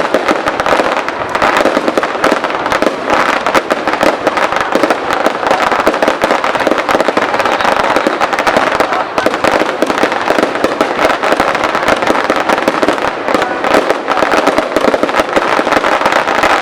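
Fireworks going off in rapid, continuous succession: a dense crackle of many small bursts with no let-up.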